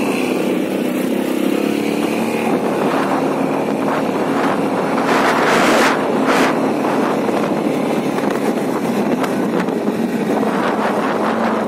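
Quad bike engine running steadily under way, heard from on board over a rough dirt track, with rushes of wind and road noise, the loudest about five to six seconds in.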